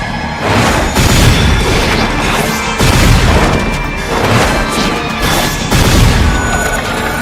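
Anime fight sound effects: repeated heavy booms and crashing impacts over a loud, dramatic orchestral-style score.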